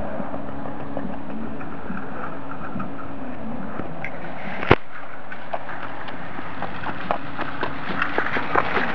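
Metal shopping cart rolling over asphalt with a steady rolling noise, a single sharp knock about halfway through, and scattered clicks and knocks near the end.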